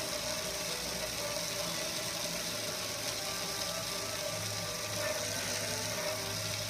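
Water pouring and splashing down over a gas grill and onto concrete, over a steady hum.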